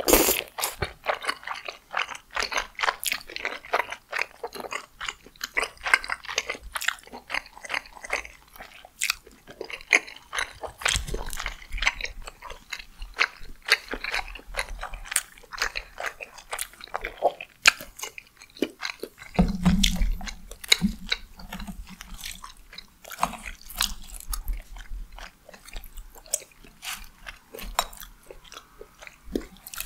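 Close-miked chewing of tteokbokki, chewy rice cakes in sticky red sauce: a steady run of wet mouth clicks and smacks, with a couple of dull low bumps midway.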